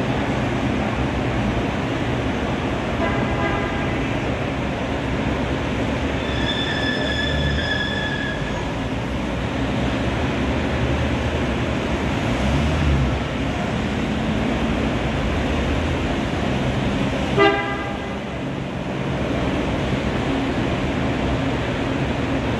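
Vintage GAZ cars driving past in a parade with steady engine noise. Car horns toot over it: a short horn about three seconds in, a longer, higher-pitched one around seven seconds, and a brief blast about seventeen seconds in.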